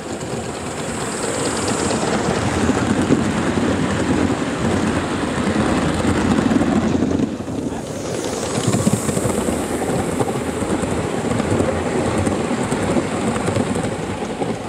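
Gauge 1 model train, a locomotive hauling coaches, running along the garden-railway track close by: a steady rolling rumble of wheels on rail that grows louder over the first few seconds, dips briefly about halfway, then carries on.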